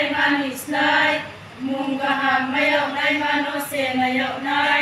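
Group of women's voices singing together a cappella in unison, in long held phrases with a short break for breath about a second and a half in.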